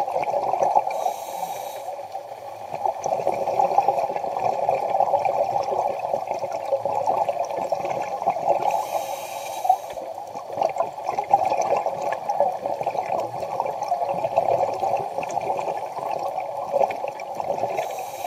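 Muffled underwater sound picked up through a camera housing: a steady dull rush with fine crackling throughout, and short hissing bursts about a second in, around nine seconds in, and again near the end.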